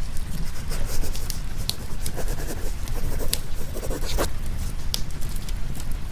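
Fireplace crackling, with scattered sharp pops and a short run of crackle ending in a louder snap about four seconds in, over a steady low rumble of rain.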